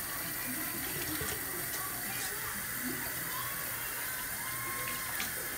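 Kitchen faucet running steadily into a stainless steel sink, the stream splashing into a dish of water, with a few brief splashes as a yellow parakeet bathes under it.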